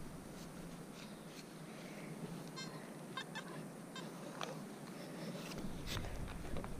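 Faint scattered scrapes and clicks of a shovel digging into grassy soil, with a few short high-pitched calls in the background.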